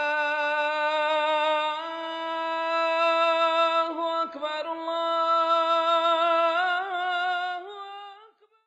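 Intro jingle: a single sung voice holding long, steady notes that step up slightly about two seconds in. It breaks briefly around four seconds, turns wavering and ornamented near the end, and stops about eight seconds in.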